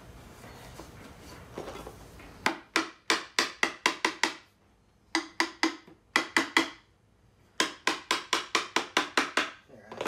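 Hammer tapping the maple leg and stretcher joints of a Windsor rocker home during a dry assembly. The taps come in three quick runs of sharp strikes, about five a second.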